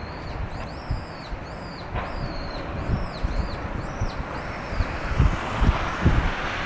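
Wind buffeting the microphone in low rumbles, gustier near the end. Over it a small bird calls a quick series of short, arched chirps, about two a second, stopping a little past the middle.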